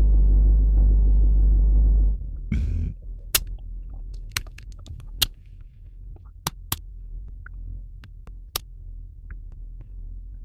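A loud, steady low rumble that cuts off suddenly about two seconds in, then a faint low hum with a scattering of sharp, single clicks, a dozen or so over the next six seconds, from a computer mouse.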